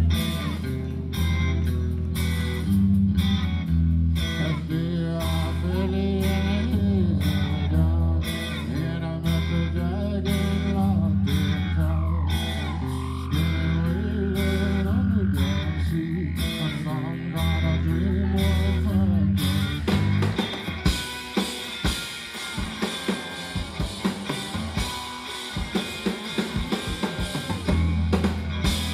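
Live rock band playing: electric guitar, bass and drums, with a tone that swoops down and back up near the middle. About two-thirds of the way through, the bass drops out, leaving scattered drum hits and guitar.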